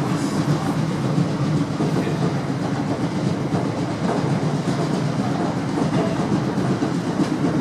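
Class 455 electric multiple unit running between stations, heard from inside the carriage: a steady rumble of wheels on rails with occasional faint clicks.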